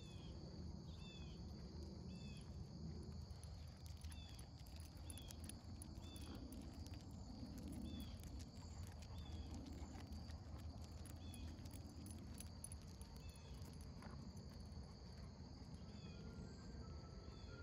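Faint, steady chorus of crickets and other insects trilling, with a short chirping call repeated about once a second and a low rumble underneath.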